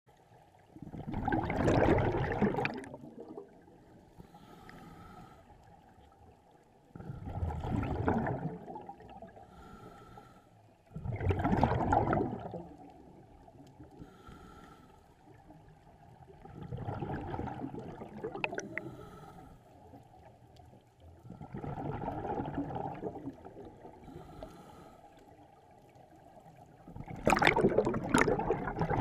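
Scuba diver breathing through a regulator underwater. Each exhale is a loud bubbling rush of about one to two seconds, coming about every five seconds, six times, with a faint hiss in the quieter stretches between.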